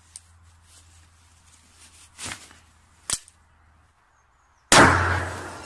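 A faint low hum with a few small clicks, a sharp click about three seconds in, then one loud bang near the end that dies away over about a second.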